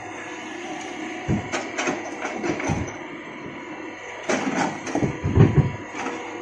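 Hitachi excavator running steadily, with clusters of knocking and scraping as rock is dug and loaded, the loudest knocks about five seconds in.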